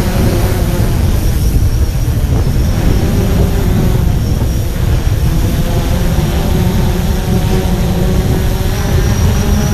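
DJI Phantom 4 quadcopter hovering close by, its propellers giving a steady hum, under heavy wind rumble on the microphone.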